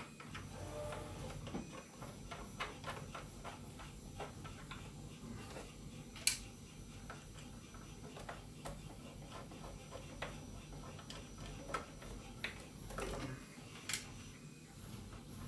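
Small precision screwdriver working the door screws on the plastic body of an RC scale truck: a run of small, irregular ticks and clicks, with two sharper clicks about six and fourteen seconds in.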